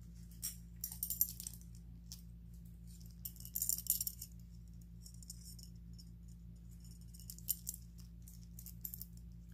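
Hammered silver-tone metal earrings jingling and clinking against each other as they are handled, in short scattered bursts, the loudest about four seconds in. A low steady hum runs underneath.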